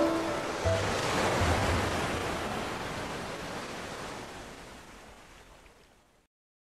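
A steady rushing noise that slowly fades out to silence about six seconds in.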